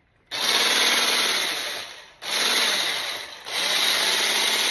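Hamilton Beach hand blender's electric motor spinning its wire whisk attachment in open air, switched on three times in a row; each run starts abruptly and dies away as the motor winds down.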